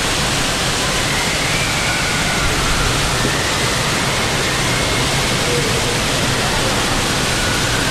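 Steady rush of water in an indoor waterpark, with faint distant voices calling over it.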